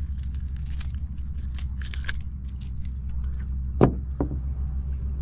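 Metal fishing pliers and hook clicking and clinking as a hook is worked out of a small bass's mouth, with a sharp knock about four seconds in. A steady low hum runs underneath.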